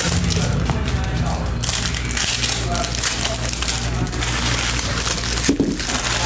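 Foil trading-card pack wrappers being torn open and crinkled right by the microphone, in several rustling bursts with short breaks.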